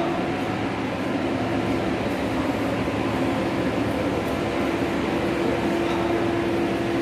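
Steady mechanical hum of a workshop: an even rushing noise with one held tone running through it, like a fan or machine running continuously.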